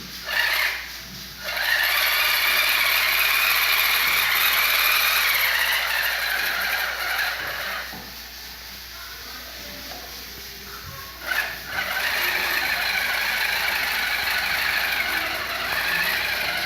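Small electric motor and gears of a homemade RC truck whirring in two runs of about six seconds each, with a short pause between them, each run preceded by a brief burst.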